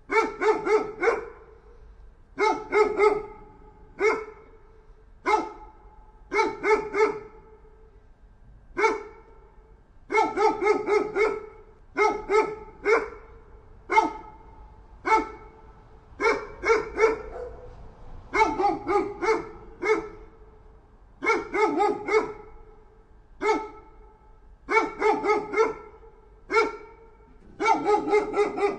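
A dog barking over and over, in groups of one to four barks a second or two apart.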